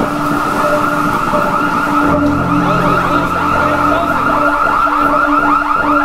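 Storm wind howling and whistling through the gaps of glass entrance doors, a wavering high whistle over a lower tone that keeps cutting out and coming back with the gusts.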